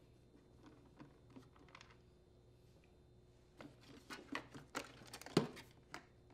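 Faint ticks of a screwdriver backing out screws, then a run of plastic clicks and knocks as the engine housing (shroud) of a Husqvarna 150BT leaf blower is worked loose and lifted off, the loudest knock near the end.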